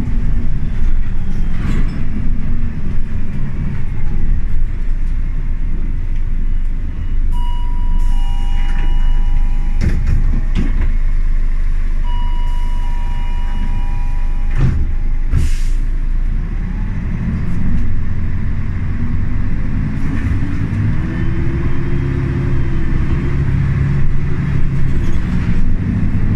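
Inside a Jelcz M121MB city bus under way: the diesel engine and running gear rumble steadily. A two-tone chime sounds twice, about seven and twelve seconds in, each time with a hiss of air, and there are two sharp knocks. In the last few seconds the engine rises in pitch as it pulls harder.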